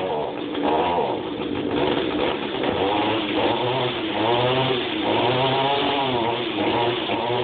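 Echo GT225 two-stroke string trimmer engine running unevenly, its speed surging up and down about once a second; it doesn't like to run very well.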